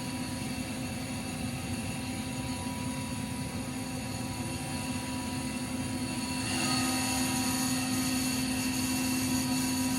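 Steady mechanical hum from a running motor or fan, with a strong low tone and fainter higher tones; about six and a half seconds in it gets louder and brighter.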